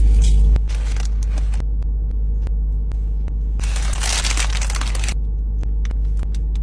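Paper burger wrapper crinkling for about a second and a half as a burger is unwrapped, starting about three and a half seconds in. Under it runs a steady low rumble inside a car, with small handling clicks.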